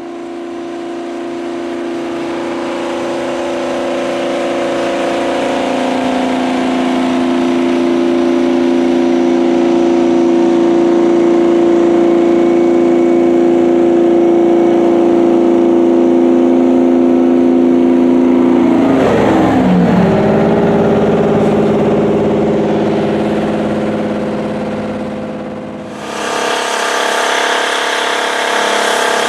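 Detroit Diesel 12V92 two-stroke V12 diesel of a Rite 750 four-wheel-drive tractor running steadily as the tractor moves past, growing louder, with its pitch dipping about two-thirds of the way through. Near the end it cuts suddenly to the same engine working hard, pulling a 20-bottom moldboard plow.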